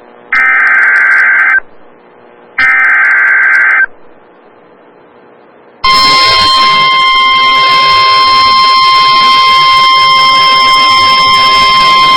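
Emergency Alert System SAME header bursts, two harsh digital warbles of about a second each with a short gap between them. After a quiet pause, a loud steady single-pitch attention tone starts about six seconds in and holds. This is the Weather Radio alert signal that comes before a spoken severe thunderstorm warning.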